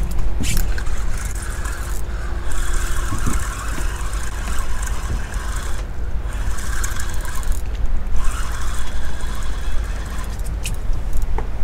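Wind rumbling on the microphone. A fishing reel whirs in three stretches of a second or two each while a fish that has just taken a live bait under a float is played on a bending rod.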